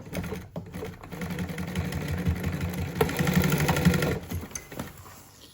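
Upholstery sewing machine stitching in one run, starting about a second in and stopping about four and a half seconds in, sewing down the end of a zipper on an armrest cover.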